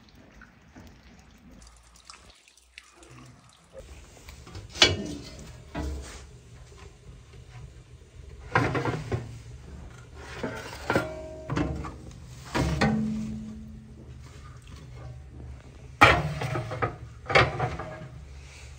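Metal baking tray and oven door being handled: a series of sharp metallic clacks and knocks, some with a short ringing tail, starting after a few quiet seconds.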